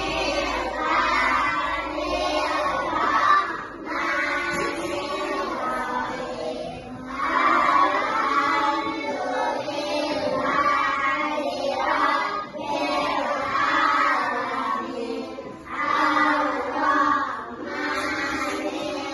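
A group of children's voices singing together in unison, in sustained phrases.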